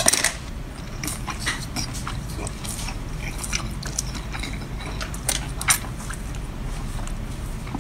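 A person biting and chewing seafood from a seafood boil: a string of short, irregular wet crunches and clicks from the mouth, over a low steady hum.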